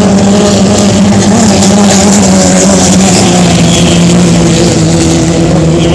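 Racing hydroplane's engine running at speed across the water: a loud, steady drone whose pitch slowly drops.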